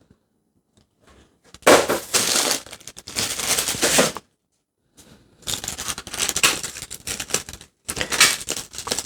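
Paper packaging crinkling and tearing as action figures are pulled out of their box, in three bursts with short pauses between.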